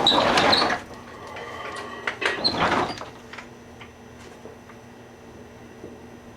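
Two loud bursts of crackling and buzzing from a reptile night heat lamp bulb arcing inside a running microwave oven, each lasting under a second and about two seconds apart. The oven's steady hum runs underneath.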